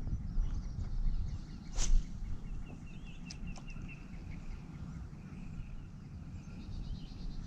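Steady low rush of water at a spillway, with one sharp swishing noise about two seconds in and a small bird chirping in quick high notes soon after.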